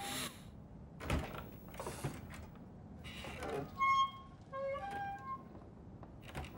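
Sparse film soundtrack: short, separate high woodwind-like notes, spaced apart, with brief soft swishes and knocks between them.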